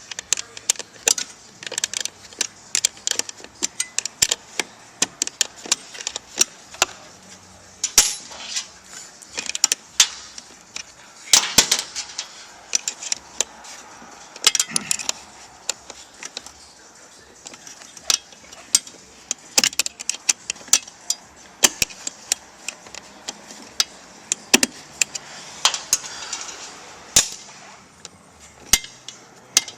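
Hand tools and small metal parts clicking and clinking at an irregular pace, with a denser burst of clatter about eleven seconds in, as a car seat is being taken apart.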